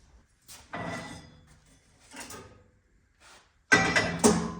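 Steel tubing being handled: several knocks and clanks, then a loud metallic clang near the end that rings briefly and dies away.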